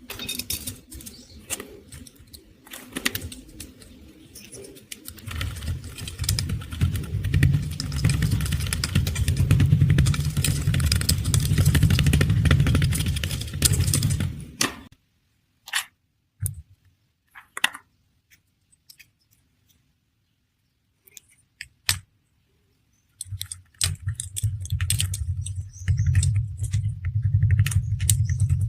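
Kinetic sand being pounded and crushed: dense crunchy crackling with many small clicks, with a deep rumble underneath during the heaviest stretches. Past the middle it falls nearly silent for several seconds apart from a few single taps, then the crushing starts again.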